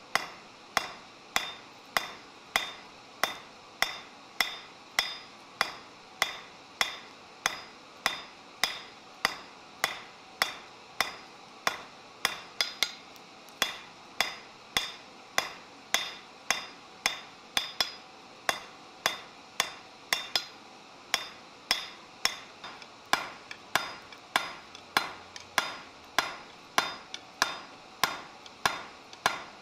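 Blacksmith's hand hammer striking a red-hot bar on an anvil in a steady rhythm, about two blows a second, each blow with a short metallic ring.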